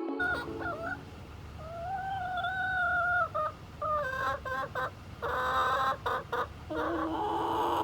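Hens vocalizing: a drawn-out call about two seconds in, then a run of short, choppy clucks, over a steady low background rumble.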